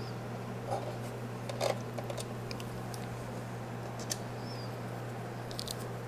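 Light clicks and rustles of hands handling parts inside an open desktop PC case, a few scattered small taps, over a steady low hum.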